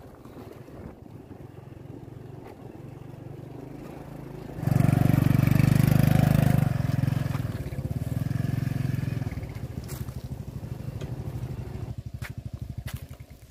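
Small motorcycle engine running at low speed over a rough dirt trail. It gets much louder about four and a half seconds in for about two seconds, then runs on more quietly with an uneven, pulsing beat near the end.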